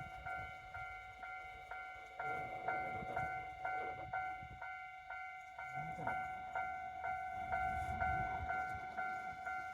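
Japanese railway level-crossing alarm bell ringing in an even repeating clang, about two strikes a second. A low rumble builds underneath from about two seconds in.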